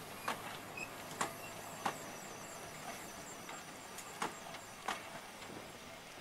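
Heritage railway passenger coaches rolling slowly past, their wheels clicking sharply over the rail joints at uneven intervals, over a steady low rumble.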